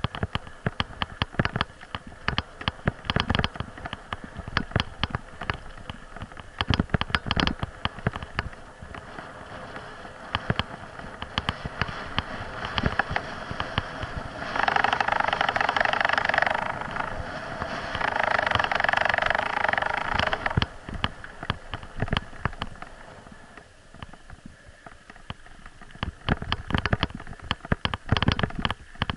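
Bicycle rattling and knocking over a rough dirt and stone track, with sharp jolts from bumps throughout. About halfway through come two spells of steady crunching hiss as the tyres roll over loose stones.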